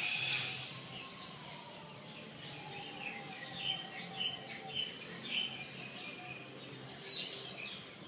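Birds chirping: short, high chirps repeated at irregular intervals, over steady background noise.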